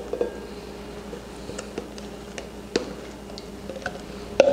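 Scattered light clicks and taps of a plastic measuring cup against a glass mixing bowl as the foamy yeast-and-milk mixture is poured out, with a sharper knock near the end.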